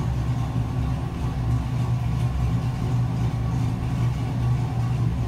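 Chevrolet Camaro SS's 6.2-litre V8 idling steadily at operating temperature, with the electric radiator cooling fans running, heard from inside the cabin.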